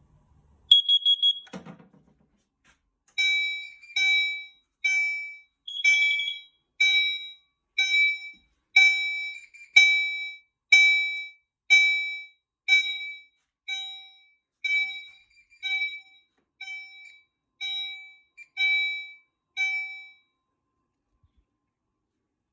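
Fire alarm horns on a Potter PFC-4064 system sounding in even pulses about once a second for some seventeen seconds, then stopping; the panel is in alarm from a CO detector test. A single short high beep comes first, about a second in.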